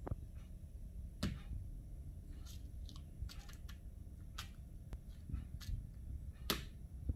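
Fingers tapping and touching plastic snack packets: a scattering of light, separate clicks, the loudest near the end.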